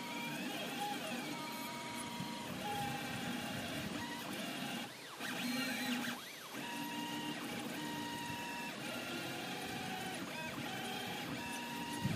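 Stepper motors of a 3D printer and its geared peristaltic-pump extruder whining while printing: pitched tones that start, stop and shift in pitch with each move, with short rising and falling glides as the axes speed up and slow down.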